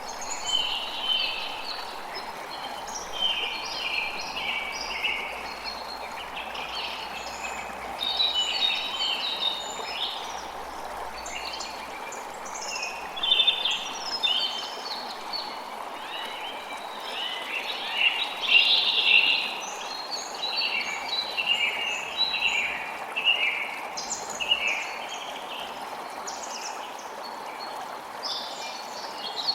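Forest birds singing and calling almost continuously, many overlapping short chirps and trills, over a steady, even rushing background noise.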